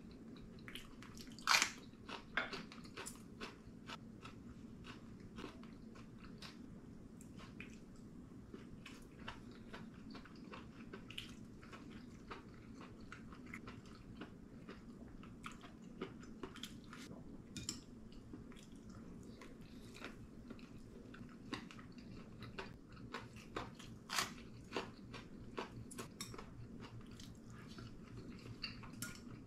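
Close-up sounds of a person eating: chewing, biting and crunching, with a loud crunch about a second and a half in as a raw green chili pepper is bitten, then scattered small crunches and clicks. A steady low hum lies beneath.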